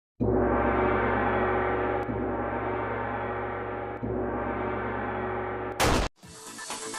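Intro sound effect: a long, ringing gong-like tone that slowly fades, cut off near the end by a short, loud whoosh, after which electronic music with a beat starts.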